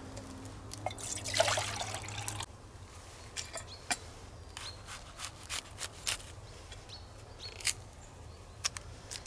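Liquid poured from a stainless steel bottle for about a second and a half, followed by a few short crisp clicks and crunches as a knife cuts into an apple.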